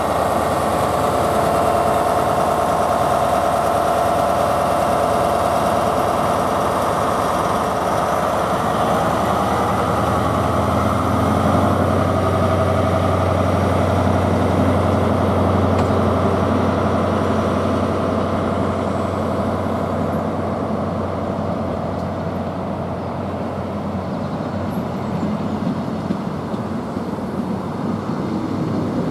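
Class 43 HST power car's diesel engine running close by as the train moves slowly along the platform, with a steady whine early on. A deeper engine note comes in about a third of the way through and eases off near the end as the coaches roll past.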